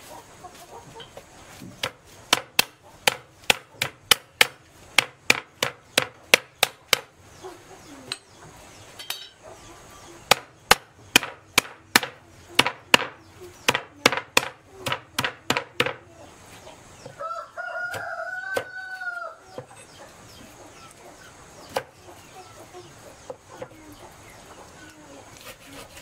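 Chopping on a wooden block, about three sharp strikes a second in two runs, typical of a cleaver cutting roasted pork. A rooster crows once, about two-thirds of the way through.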